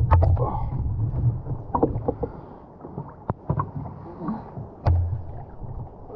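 Kayak on choppy water, with water slopping against the hull and scattered sharp knocks and clicks as gear is handled aboard. Low gusts of wind hit the microphone at the start and again about five seconds in.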